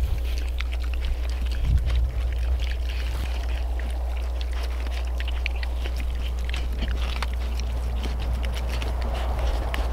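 Piglets eating vegetable scraps off the ground: a run of irregular small crunching and chewing clicks with snuffling, over a steady low rumble.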